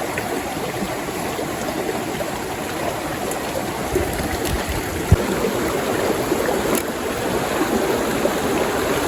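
Small mountain stream running over rocks: steady rushing water close by. Two brief knocks come through about four and five seconds in.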